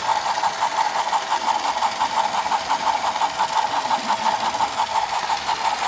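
Small battery-powered toy train motor and gearing running steadily, a whirring hum that pulses evenly several times a second.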